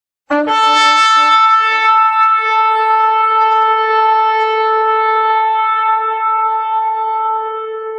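Shofar (ram's horn) blown: a few short notes switching between two pitches, then one long held blast that slowly fades near the end.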